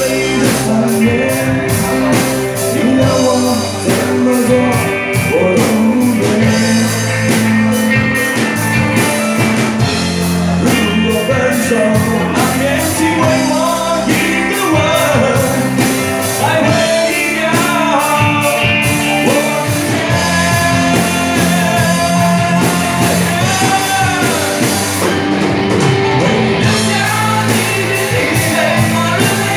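Live rock song: singing over a full rock band backing, playing continuously.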